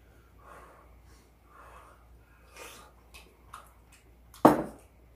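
Soft breathing and small mouth noises while eating, with a few light clicks, then one loud sharp knock about four and a half seconds in.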